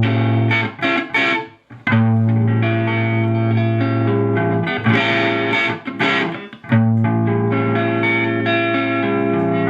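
Overdriven electric guitar: a few short choppy strums, then long ringing chords. The sound comes from a TS-9 Tube Screamer-style overdrive pedal driving a tube amp's clean channel into overdrive, and it shows touch sensitivity.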